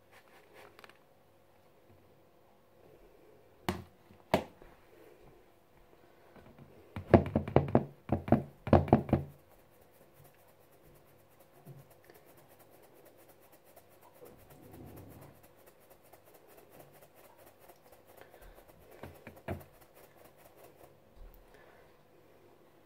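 Sieve being tapped and knocked to sift icing sugar: two single knocks, then a quick run of knocks about seven seconds in, the loudest part, and a few softer taps later on.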